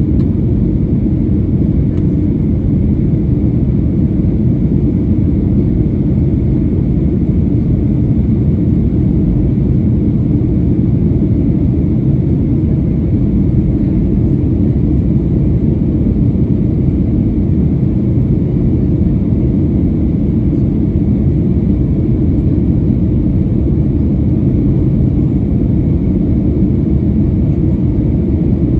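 Steady, loud rumble inside the cabin of a Boeing 737-900ER, its CFM56-7B engines and the airflow heard from a window seat at the rear of the cabin while under power.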